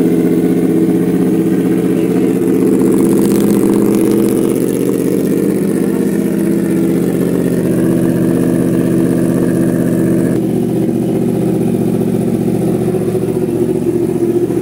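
Yamaha R1's 998 cc crossplane inline-four idling steadily through an aftermarket titanium exhaust with an SC Project silencer, loud.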